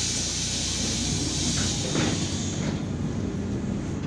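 MAZ 103 city bus's compressed-air system letting out a sudden loud hiss that fades away over about two and a half seconds, over the low rumble of the bus's idling engine.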